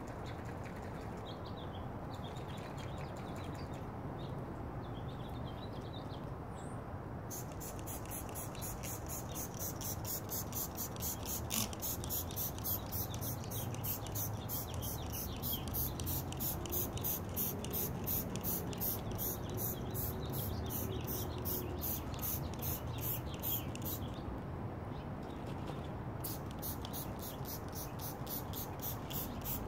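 Trigger-spray bottle squirting detailing spray onto a car's hood in a fast, even run of short hisses, about three to four a second. It starts several seconds in, pauses briefly near the end, then resumes, over a steady low background rumble.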